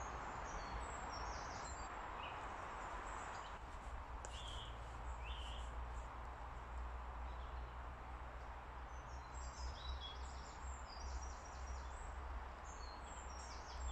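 Small woodland birds chirping and singing, with short, high calls scattered throughout, over a faint steady low rumble of background noise.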